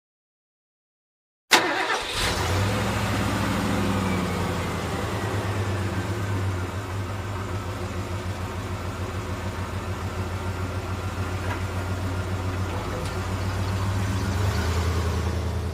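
Silence for about a second and a half, then an engine starts abruptly and runs steadily with a low, even throb that swells slightly near the end.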